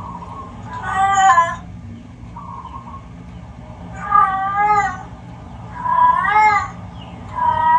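Recorded cat yowls played through a TV's speaker: about four drawn-out calls, each under a second, bending up and down in pitch, the last still going at the end.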